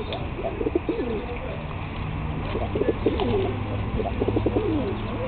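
A flock of Donek pigeons cooing, several birds calling over one another in short wavering phrases, busiest in the second half.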